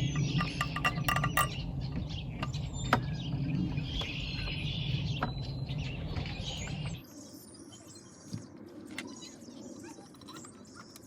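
Light metallic clinks of engine parts and bolts being handled over a steady low hum, with small birds chirping. The hum and clinks stop abruptly about seven seconds in, leaving only faint bird chirps.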